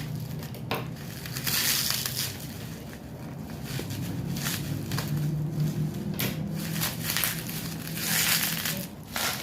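Cookie-parcel packaging being handled and opened: crinkling and rustling in irregular bursts, over a steady low hum.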